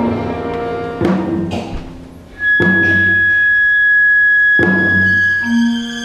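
Janggu and a chamber ensemble playing contemporary classical music: three sharp drum strokes, each met by a chord from the ensemble, and a high note held from about two seconds in to the end.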